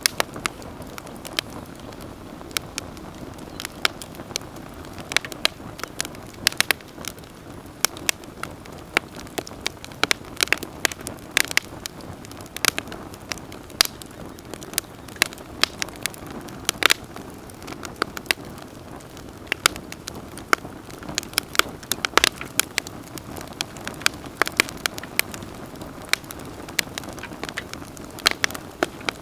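Wood campfire crackling: irregular sharp pops and snaps, several a second, over a steady low rush of burning flames.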